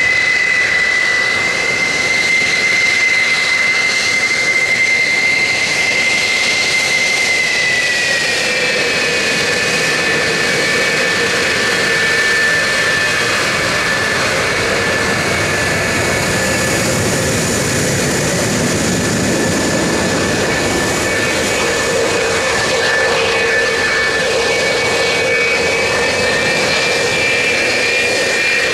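Jet engines of RF-4 Phantom II reconnaissance jets, General Electric J79 turbojets, running at idle on the ramp: a loud, steady roar with a high whine. The whine drops slightly in pitch about eight seconds in.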